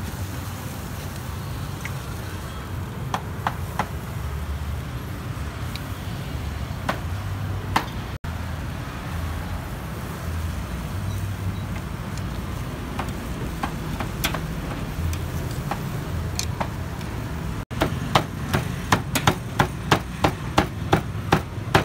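Steady low rumble of engines and street noise with scattered light clicks. About eighteen seconds in, a run of sharp knocks starts, about three a second, which fits a cleaver chopping on a cutting board.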